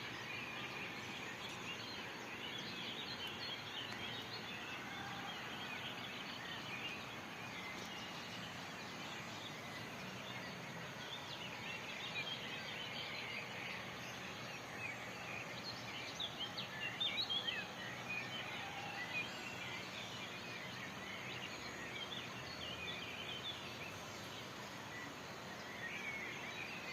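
Many birds chirping and singing together over a steady outdoor hiss, with a quick run of louder notes a little past halfway.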